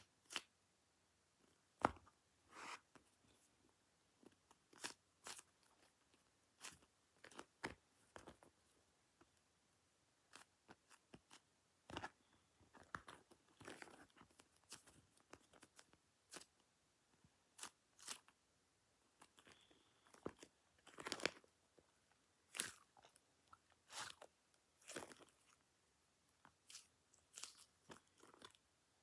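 Squishy toys being handled on a desk: faint, irregular crinkles and taps, one every second or so.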